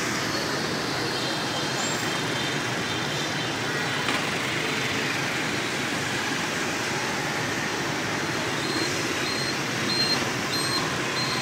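Steady rush of motorbike traffic and wind noise, heard while riding along a city street among other motorbikes. From about two-thirds of the way in, a faint high beep repeats about twice a second.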